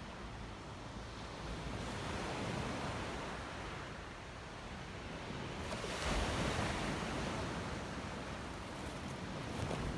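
Black Sea waves washing onto the shore, swelling and falling away, with one larger wave surging in about six seconds in.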